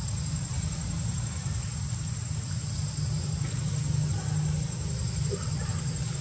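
A steady low hum like a distant engine running, with a thin, constant high-pitched whine above it.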